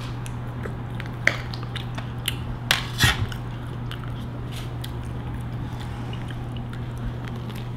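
People eating at a table: chewing, with a few sharp clicks and taps of cutlery and tableware being handled in the first three seconds, over a steady low hum.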